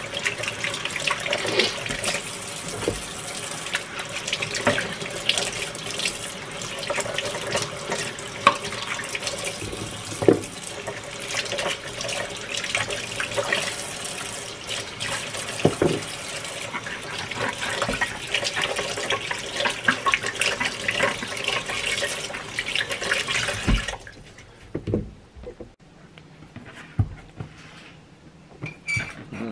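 Kitchen faucet running into a sink while potatoes and carrots are rinsed and rubbed by hand under the stream, with occasional knocks. The running water cuts off suddenly about 24 seconds in, leaving a few soft knocks.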